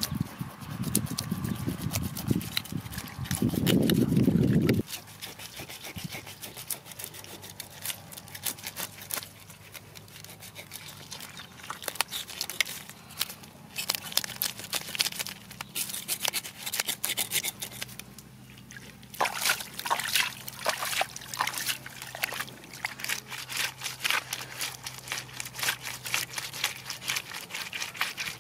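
Knife scraping the scales off a fish on a rock: many short rasping strokes, coming in quick runs through the second half. A low rushing noise, the loudest sound, fills the first few seconds.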